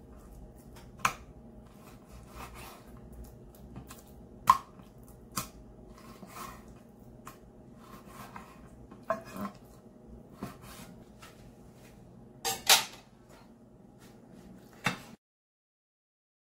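Kitchen knife cutting pork chops into large pieces on a wooden cutting board: irregular sharp knocks of the blade meeting the board, with a faint steady hum beneath. The sound stops abruptly near the end.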